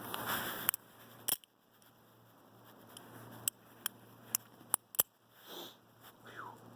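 Balisong being handled: a series of sharp metal clicks at irregular intervals, with a short squeak near the end.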